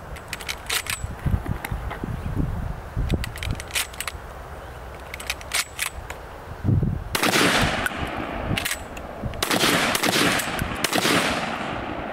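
Sjögren 12-gauge inertia-action shotgun: a run of sharp metallic clicks as shells are loaded and the action is handled, then two loud shots about two and a half seconds apart, each with a long echoing tail.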